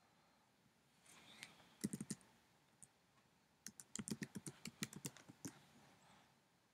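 Faint keystrokes on a computer keyboard: a few clicks about two seconds in, then a quick run of about a dozen keystrokes, roughly six a second, as an address is typed.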